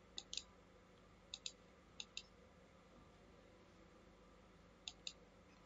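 Computer mouse button clicked in quick pairs: four double clicks spread through a near-silent room.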